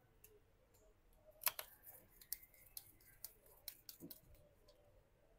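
Faint clicks and ticks of a small precision screwdriver driving screws back into a smartphone's inner cover, with one sharper click about one and a half seconds in.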